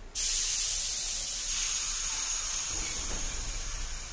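Sudden loud burst of air hiss from an R62-family subway train's pneumatic brakes releasing, held steady with a thin high whistle over it. Near the end a low rumble builds as the train starts to pull out.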